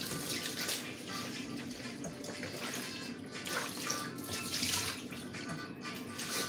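Water running from a kitchen tap and splashing in the sink, rising and falling in strength, with background music playing faintly underneath.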